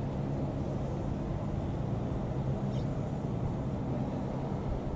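Airbus H125 helicopter flying overhead: a steady low drone from its three-bladed main rotor and turboshaft engine.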